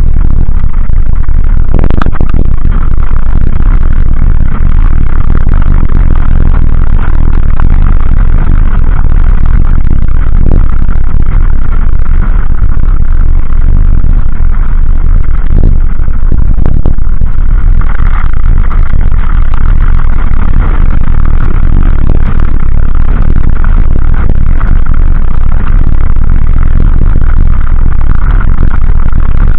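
Dualtron Ultra electric scooter running fast over a gravel track: heavy wind buffeting the stem-mounted camera's microphone, with steady tyre and gravel rattle and a few sharp knocks from bumps.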